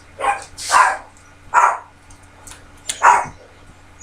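A dog barking four times in short, separate barks, with uneven gaps between them.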